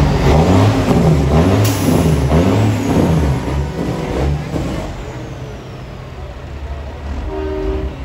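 Big-rig diesel engine revving up and down, with a brief blast of air hiss about a second and a half in. It dies down after about five seconds, and a truck horn sounds briefly near the end.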